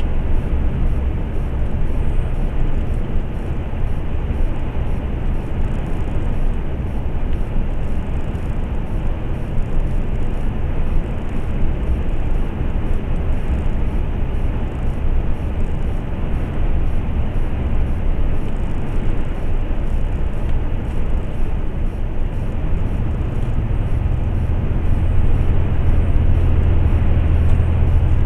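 Steady drone of a MAN semi-truck's engine and road noise, heard inside the cab while cruising at motorway speed. A low hum grows louder near the end.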